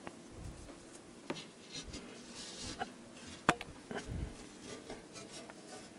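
Glass pane being handled and laid onto the spacer frame of a double-glazed unit on a cloth-covered table: scattered light clicks and taps of glass, a few dull knocks and faint rubbing of hands and cloth, the sharpest click about three and a half seconds in.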